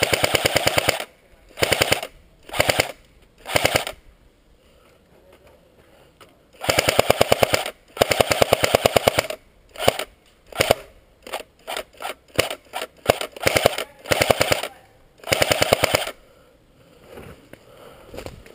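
Airsoft guns firing close by: several rapid full-auto bursts, each a second or so long, with single semi-auto shots in between, mostly in the middle of the stretch.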